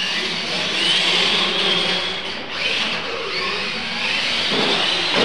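Radio-controlled monster trucks' electric motors whining as they race, the whine rising in pitch several times as they speed up.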